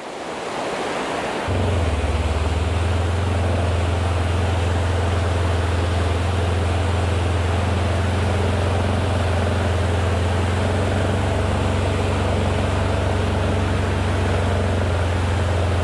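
Steady rush of floodwater. A strong, steady low drone comes in about a second and a half in and holds throughout.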